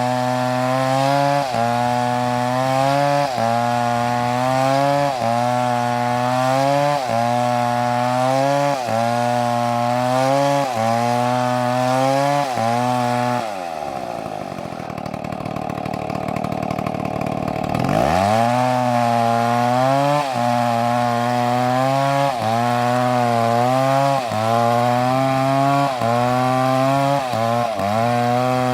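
Two-stroke chainsaw cutting wood at high revs, its engine pitch dipping and recovering about every two seconds as it works through the cut. About halfway through it drops off throttle and runs quieter for a few seconds, then revs back up and carries on cutting.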